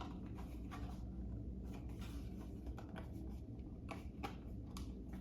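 Hands handling a Lego set's cardboard box and its paper contents: soft rustling with scattered light clicks and taps, two sharper taps about four seconds in, over a low steady hum.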